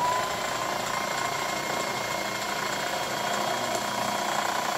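Yamata FI900 household sewing machine running steadily at speed to wind a bobbin, its handwheel pulley knob pulled out to disengage the needle. The motor hum starts up at the very beginning and then holds even.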